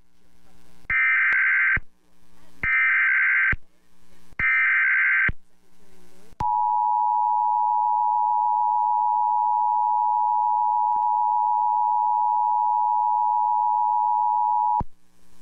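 Emergency Alert System tones on a radio broadcast: three short, harsh bursts of SAME header data, then the two-tone attention signal, held steady for about eight seconds and cutting off sharply. Together they announce a severe thunderstorm warning.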